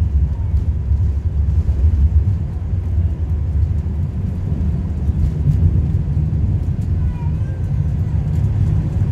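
Cabin noise of an Airbus A380 on its takeoff roll: a heavy, steady low rumble from the engines at takeoff thrust and the wheels on the runway, heard from inside the passenger cabin.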